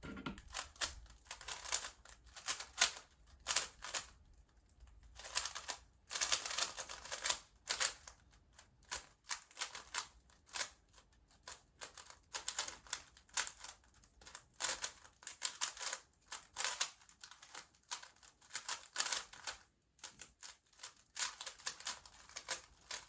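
GAN 356 M magnetic 3x3 speedcube turned fast in a timed solve: rapid plastic clicking and clattering of layer turns, in flurries with short pauses between them.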